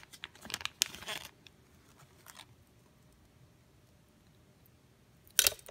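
Clear plastic zip-lock jewellery baggie crackling as it is pulled open, then quiet handling. Near the end, a short sharp metallic clatter as the silver snake-chain bracelet is dropped.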